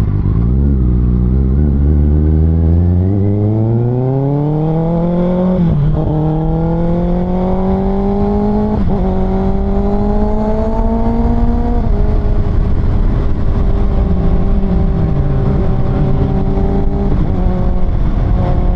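Kawasaki ZX-6R's 636cc inline-four, fitted with an Austin Racing aftermarket exhaust, accelerating hard through the gears. The revs climb for about five seconds, and the bike shifts up twice with a quick break in pitch each time. The throttle then eases about twelve seconds in, and the engine holds a steady cruise with a brief dip in revs.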